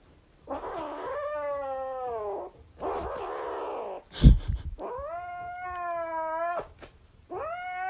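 A cat giving three long, drawn-out meows, the first falling in pitch, with a loud thump about four seconds in.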